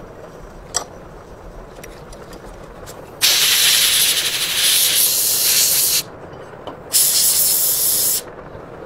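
Compressed-air blow gun blasting over a cast-metal gun frame to clear chips from a freshly tapped thread, in two hissing bursts: the first about three seconds long, the second just over a second. A single sharp metal click comes about a second in.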